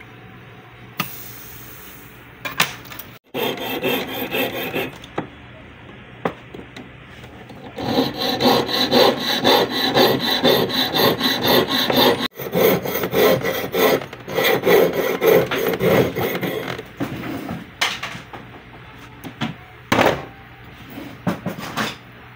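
Jeweler's saw blade cutting through a strip of soldered 18k gold tube settings on a wooden bench pin, in fast back-and-forth strokes over several runs. A few separate knocks come near the start and near the end.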